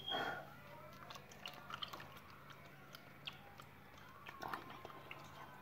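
Baking soda being stirred into water in a clear plastic tub: faint, irregular taps and scrapes of a thin stirring stick against the plastic, with small liquid sounds.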